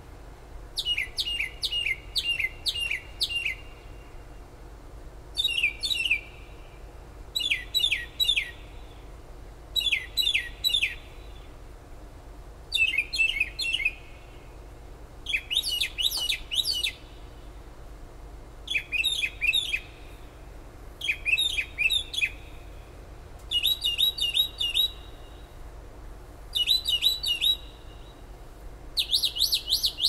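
A songbird singing: short phrases of three to six quick, sharply downslurred notes, repeated every two to three seconds, with the phrase pattern changing from one to the next. The song sits over a steady low hum.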